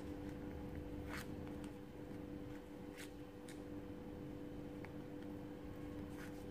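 A few faint, scattered clicks and crinkles of a thin plastic cookie tray being handled as soft cookies are picked out of it, over a steady low hum.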